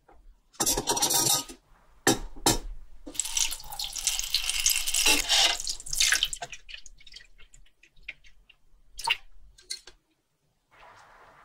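Water running and splashing in irregular bursts, with a longer run in the middle, then scattered drips and splashes.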